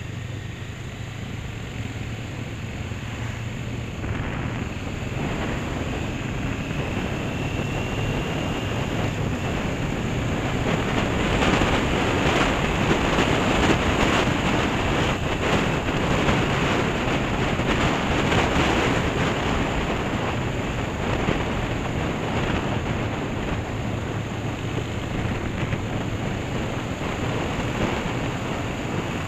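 Wind rushing over the microphone of a moving Honda CB500 motorcycle, with its parallel-twin engine running steadily underneath. The wind grows louder about ten seconds in and eases off again near the end.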